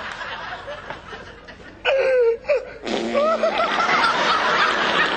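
A person laughing: breathy snickering, with a short pitched laugh about two seconds in and more laughter from about three seconds on.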